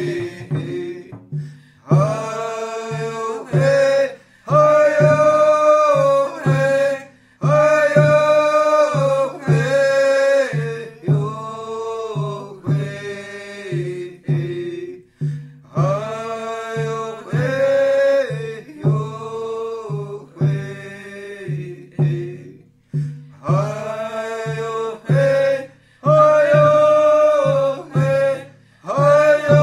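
Voices singing a chant-like song over a steady hand-drum beat, about two strokes a second.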